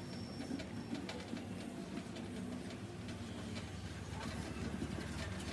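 Pigeon cooing in low, repeated notes, with faint light clicks.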